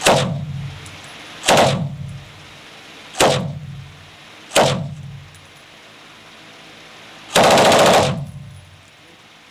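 A 7.62 mm machine gun fired from a bipod fires four brief bursts about a second and a half apart, then one longer burst of rapid fire near the end. Each burst rings on with a short echo in the enclosed tunnel range.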